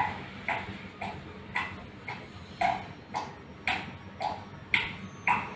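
Water dripping from a tap into a full bucket of water: a steady run of pitched plinks, about two drops a second.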